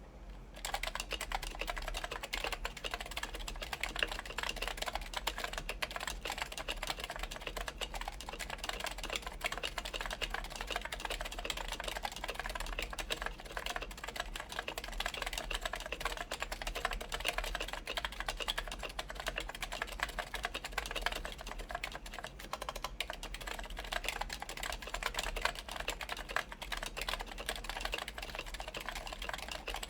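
Continuous typing on a Linworks PC Dolphin electro-capacitive keyboard with DynaCap Light Dome switches, silencing rings, a full aluminium plate and DCS keycaps. Typing starts about half a second in.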